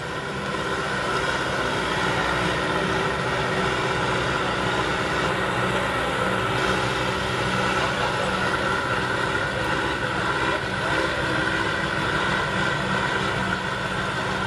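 Vehicle engine running steadily at an even speed.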